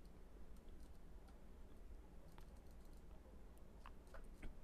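Near silence: faint room tone with a few soft clicks from working a computer, one about two and a half seconds in and a small cluster near the end.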